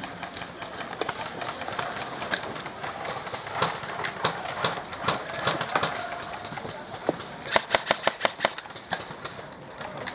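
Airsoft guns firing: scattered shots throughout, then a rapid burst of about eight shots in a second near the end.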